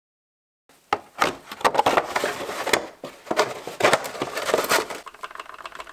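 Hand work on metal parts: a dense run of clicks, knocks and scraping starting about a second in and thinning out near the end.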